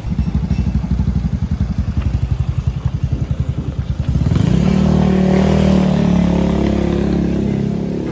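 A small engine's low, rapid pulsing, then background music with held notes takes over about four seconds in, louder than the engine.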